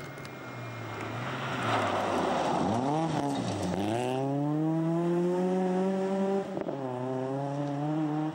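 Vauxhall GSi rally car passing at speed on gravel. Its revs drop twice as it comes through, with gravel noise under the tyres, then climb steadily as it accelerates away, with a gear change about six and a half seconds in.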